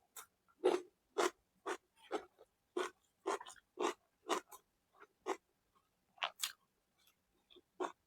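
Close-up mouth sounds of a person eating: a run of short, moist chewing and lip-smacking clicks, about two a second, irregular.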